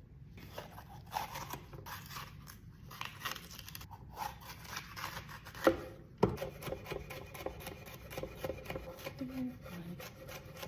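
Repeated short scraping and rubbing strokes from kitchen prep work, with two sharper knocks a little past the middle.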